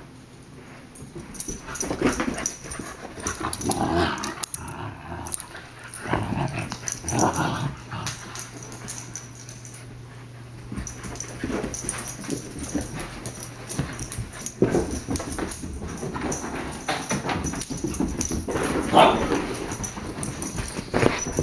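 Two husky puppies play-fighting, growling and whining in irregular bursts, with a quieter stretch about eight to eleven seconds in.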